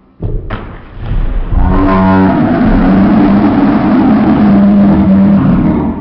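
Two quick thuds as a flying tackle takes a man off his feet and both men land on a carpeted floor, followed by a loud, long drawn-out voice-like cry.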